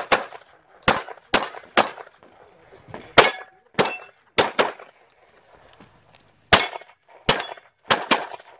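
About a dozen competition handgun shots fired in quick pairs and short strings, with a pause of about two seconds near the middle. A few shots are followed by a brief metallic ring, as of a struck steel target.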